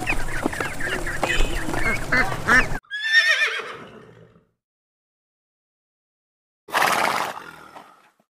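A busy chorus of bird calls over farmyard noise, cut off abruptly about a third of the way in. Then a horse whinnies once, a shaky call falling in pitch and fading, and after a pause of a couple of seconds comes a single short breathy burst.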